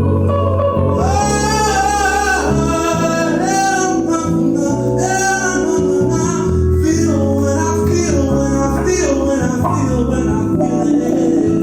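Live band music: a sung melody, held and bending without clear words, over guitar, keyboard and bass.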